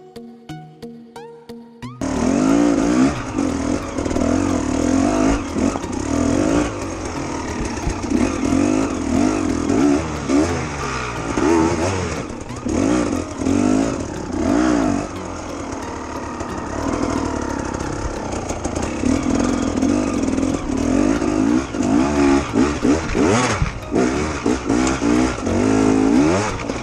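Brief music, then an enduro dirt bike's engine revving hard, its pitch rising and falling over and over as the rider works up a steep, loose climb.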